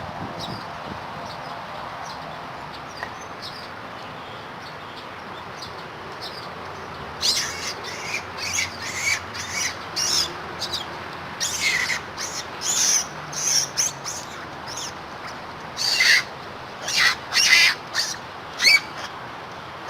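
Short, shrill animal calls repeated over and over, starting about seven seconds in and growing loudest near the end, over a steady background hiss.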